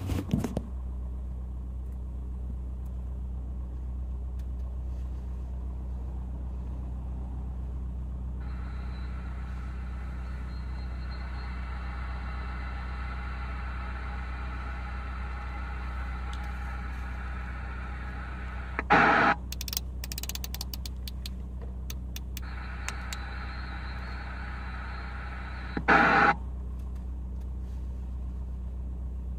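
CB radio receiver on 27 MHz sideband giving out band static, a hiss that comes and goes, over a steady low hum. Two short loud bursts of signal break through about 19 and 26 seconds in, with a few clicks between them.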